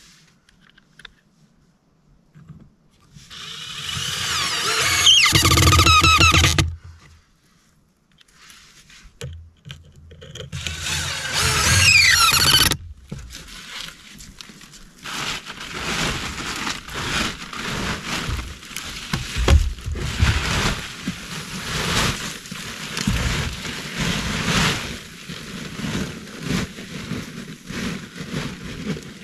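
Cordless drill driving a screw into a wooden log post: two runs, the squealing whine rising and wavering under load and stopping suddenly each time. After that, scattered knocks and rustling of handwork on the timbers.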